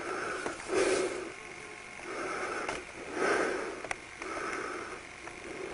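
A person breathing audibly close to the microphone, a breath swelling and fading about once a second, with one sharp click about four seconds in.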